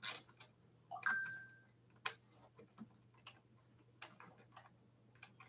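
Faint, scattered small clicks and taps of hand tools and metal parts being worked at an e-bike's handlebar stem, with one brief metallic ring about a second in.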